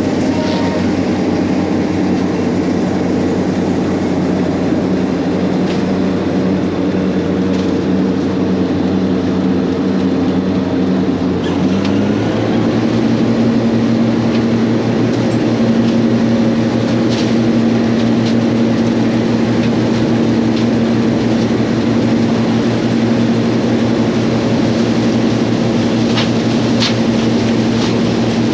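John Deere 6620 combine running while harvesting corn: a steady, loud engine and machinery drone. The engine note steps up in pitch about twelve seconds in and holds there.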